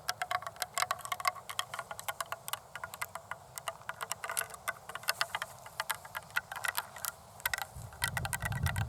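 Long acrylic nails tapping rapidly, a quick irregular stream of sharp clicks. Near the end a low rumbling noise joins them.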